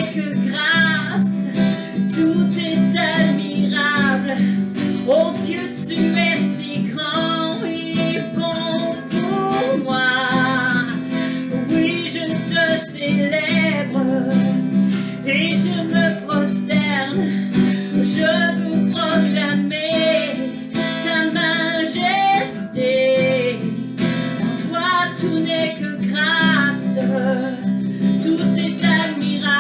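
A woman singing with her own strummed acoustic guitar, the voice carrying a slow melody over steady chords.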